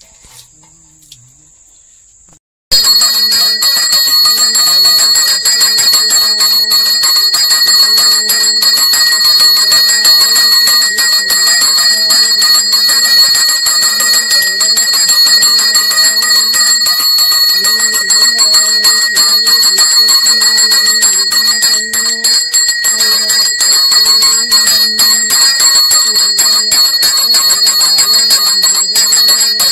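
Temple bells rung rapidly and without a break for the lamp offering to the idol. The ringing starts abruptly about three seconds in and is loud and even throughout.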